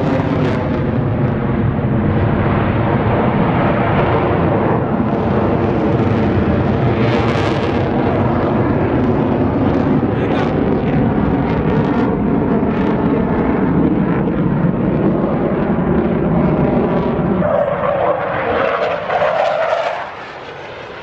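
Airplane engine flying by, loud and steady, its pitch falling at the start as it passes. The sound fades down shortly before the end.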